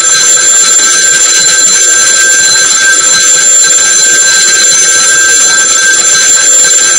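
A bell ringing loudly and without a break, a steady metallic ring of several high tones over a dense rattling haze, like a continuously struck alarm bell: a sound effect laid over a subscribe-and-notification-bell end screen.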